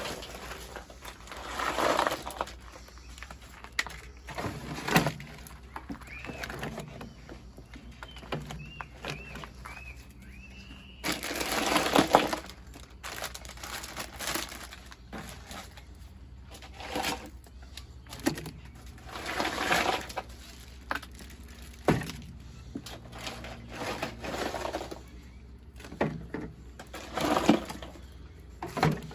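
Handling noises: irregular bursts of rustling and scraping, with several sharp knocks in between.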